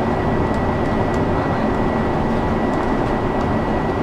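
Interior of a bus driving along a road: a steady rumble of engine and tyres, with a faint steady high whine.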